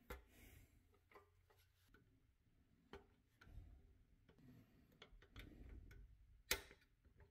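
Faint, scattered clicks and light knocks as a rubber-tyred wheel is worked onto the axle of a pressed-steel toy truck with a small tool, the sharpest click about six and a half seconds in.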